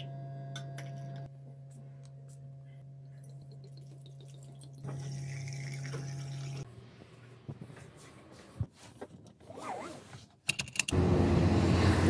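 Water poured from a glass bottle into a drinking glass over a steady low hum. Near the end, a much louder steady rushing noise of a car on the move cuts in.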